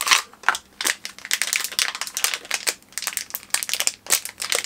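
Crinkly packaging of a small mystery-pin blind box being torn open and handled with the fingers: a quick, irregular run of crackles and rustles.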